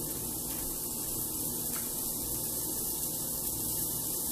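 A steady low hum under an even, constant hiss. The hiss is from hot dog pieces frying in butter in a pan.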